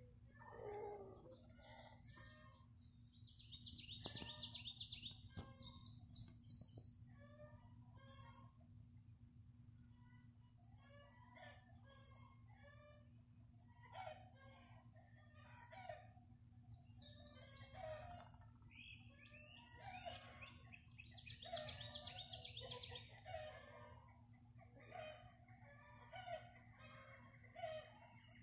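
A mother hen and her young chicks making soft, short calls every second or so: low clucks mixed with peeps. A few high trilling bursts rise above them, one about four seconds in and another around twenty-two seconds in.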